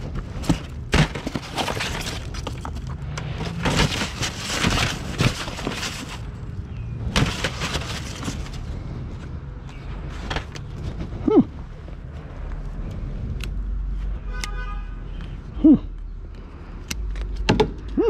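Junk and scrap being handled and shifted around at a dumpster, clattering and rustling with sharp knocks for the first several seconds. Then come a few short squeaks and, about fourteen seconds in, a brief buzzy honk-like tone.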